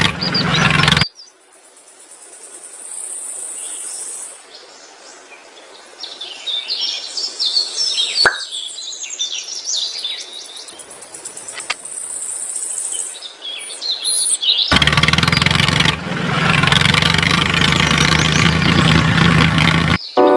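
Birds chirping in short high calls over a light steady hiss, with loud background music cutting in for a moment at the start and returning about three-quarters of the way through.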